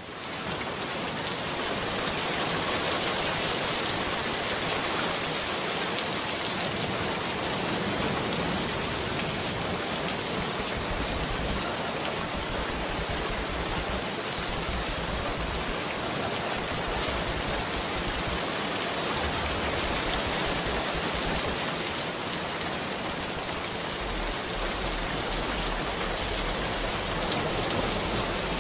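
Steady rain sound used as the masking track of a subliminal audio, an even hiss with a faint low rumble that comes and goes.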